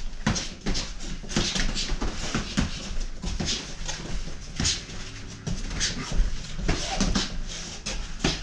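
Two boxers sparring: quick, irregular bursts of sharp breath exhaled with the punches, mixed with glove hits, over a steady low hum.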